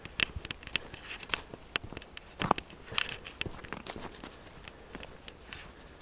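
Footsteps crunching through dry ferns, leaves and twigs on a forest floor: irregular crackles and snaps, the loudest about two and a half seconds in.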